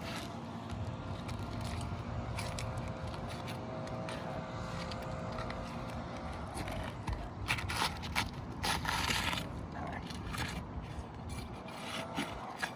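Pry bar scraping under laminate asphalt shingles as their sealant strips are broken loose, in short scraping bursts, the loudest about nine seconds in.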